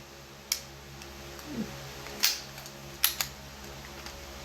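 Four sharp mechanical clicks, two of them close together near the end, from a CO2-powered air gun being handled, with a faint steady hum underneath.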